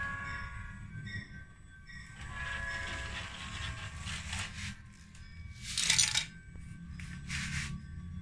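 Lego train running on its plastic track: a low steady hum with rattling plastic clicks, the loudest clatter about six seconds in.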